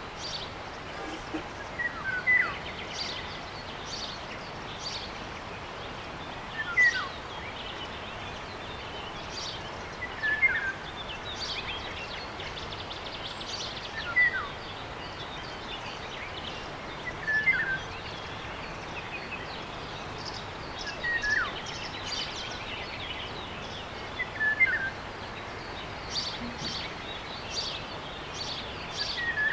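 Birds calling outdoors. One bird repeats a short call about every three and a half seconds, about eight times, and other birds give scattered higher chirps over a steady background hiss.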